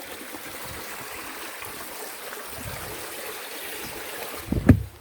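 Stream water running steadily, with a short low thump near the end.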